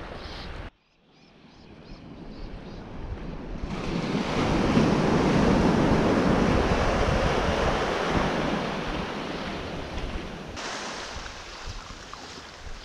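Small surf on a sandy beach: waves breaking and washing up the shore, swelling to their loudest about five seconds in and then easing off. For the first moment, wind on the microphone cuts off abruptly.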